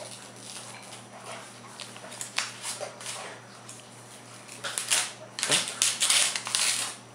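A paper envelope being torn open and handled by small hands: a run of short crackles and rips, busiest in the last couple of seconds.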